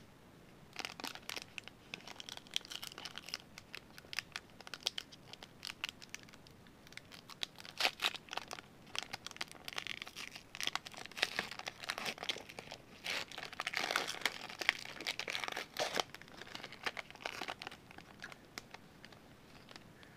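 Foil wrapper of a Metal Universe hockey card pack crinkling in the hands and being torn open, in quick irregular crackles that grow denser around the middle and again toward the end.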